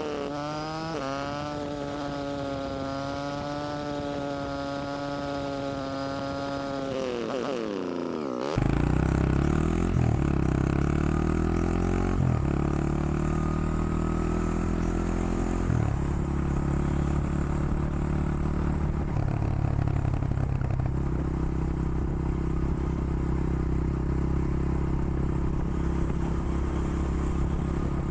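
Honda XR100 Motard's small single-cylinder four-stroke engine running at a steady, slightly wavering pitch, its revs falling away sharply about eight seconds in. Then, louder and deeper, the bike pulls away through the gears, the pitch climbing and dropping back at each of several shifts before settling into a steady cruise.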